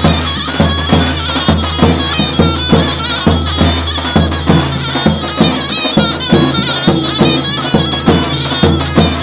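Davul and zurna playing a dance tune: the shrill, reedy zurna melody over steady strokes of the big double-headed davul, about three a second.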